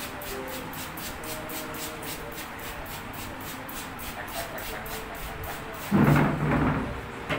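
Trigger spray bottle squirting in quick repeated pumps, about three or four hissing squirts a second, stopping near the end. A loud sound of about a second from something else breaks in just before the squirting stops.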